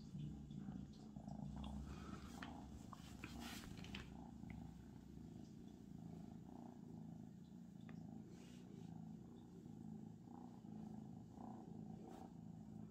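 Abyssinian kitten purring softly and steadily in a low, evenly pulsing rhythm, with light rustling of handling in the first few seconds.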